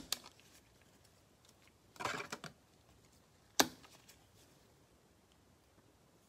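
Football trading cards being handled: a sharp tap at the start, a brief rustle about two seconds in, and another sharp click about a second and a half later as cards are flipped and set down.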